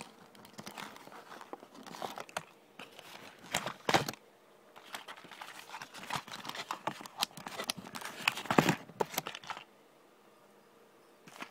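Toy packaging being handled and opened: irregular crinkling and tearing of plastic and cardboard, with two louder rips or knocks, about 4 s and 8.5 s in, then it goes quiet near the end.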